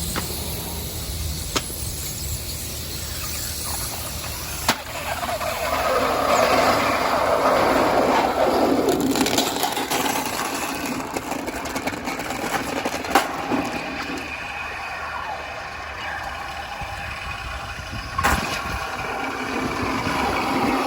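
Steady rushing roar of a gas-fired metal-melting furnace burner, swelling for a few seconds in the middle, with a few sharp metal knocks.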